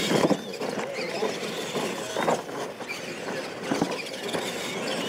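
Two radio-controlled monster trucks racing side by side on dirt: a high whine from their motors and drivetrains, with a few sharp knocks as they hit and land off the jump ramps.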